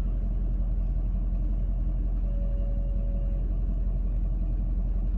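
2013 Ford F-250's 6.7 Power Stroke V8 turbodiesel running with a steady low rumble, and a thin whine like a band instrument's whistle that comes and goes, clearest for about a second near the middle. The owner cannot yet say what causes the whine.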